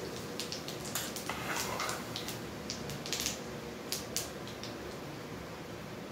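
Cumin seeds sizzling in hot oil in a kadhai: a steady hiss with scattered sharp pops and crackles as the seeds splutter, the tempering (tadka) stage.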